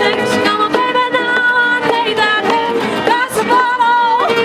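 Acoustic folk band playing live: strummed acoustic guitars, a fiddle and a cajon beat, with a woman singing.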